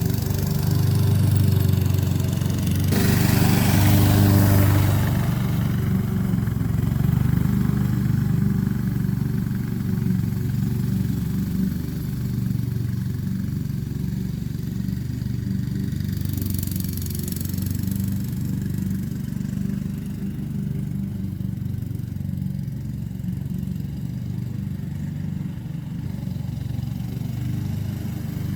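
Honda HRX217 walk-behind lawn mower running steadily, with two brief surges of rushing hiss, about three seconds in and again about halfway through.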